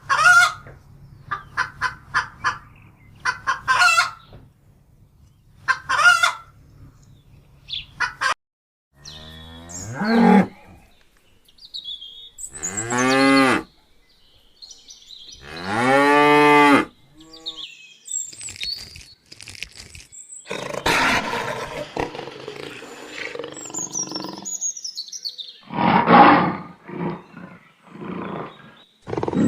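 A run of farm animal calls: short quick calls for the first eight seconds, then three long rising-and-falling cattle moos, then noisier calls with high bird chirps over them.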